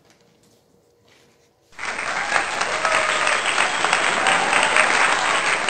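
Applause from a group of people clapping, starting abruptly about two seconds in after faint room sound, then continuing steadily.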